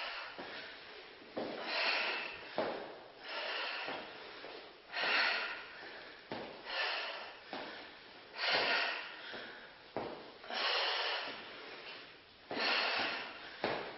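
A woman breathing hard during bodyweight exercise, with heavy exhalations about every two seconds.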